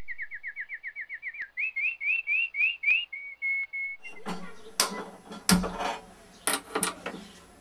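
A bird singing: a fast run of falling whistled notes, then slower rising ones, then a few steady notes. After that, several sharp clicks and knocks over a hiss as a gas stove burner is lit under a steel pot.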